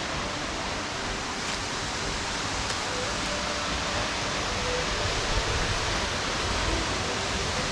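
Cherokee Falls waterfall: a steady, even rush of falling water.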